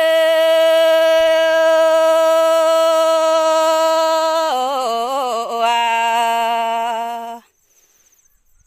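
A woman singing a Red Dao (Dao Đỏ) folk song unaccompanied. She holds one long steady note for about four and a half seconds, then drops lower with a wavering ornament, and her voice stops suddenly about seven seconds in.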